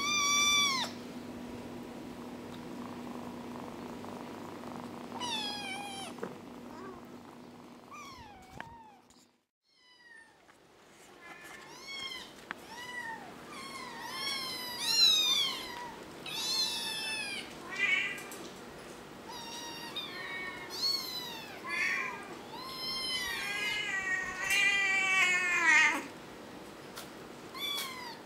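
Kittens meowing: short, high-pitched meows that rise and fall. There are a few scattered calls at first, then many in quick succession, ending with a longer, lower call near the end.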